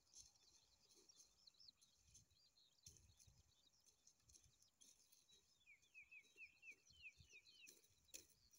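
Near silence with faint, distant small-bird twittering, and a quick run of about a dozen short chirps a little past two-thirds of the way through.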